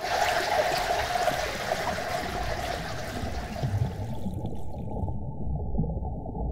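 Rushing water sound, turning muffled about four seconds in as everything above its low end is cut away.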